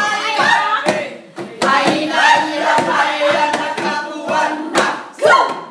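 A group of people singing a hula song together, with hands clapping along.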